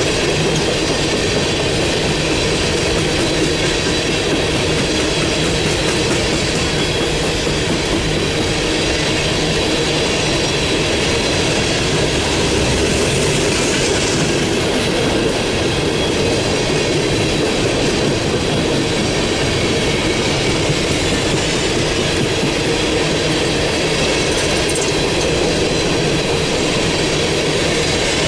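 Freight train of open-top coal cars rolling past at close range: a steady, loud rumble of steel wheels on rail with a faint, thin high wheel squeal over it.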